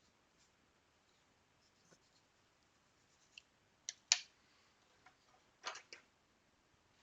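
A few sharp clicks and taps from small parts being handled during hand assembly. A double click about four seconds in is the loudest, and a quick cluster of clicks follows near six seconds.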